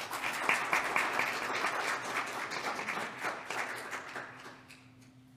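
A small congregation applauding, many hands clapping at once, dying away after about four seconds.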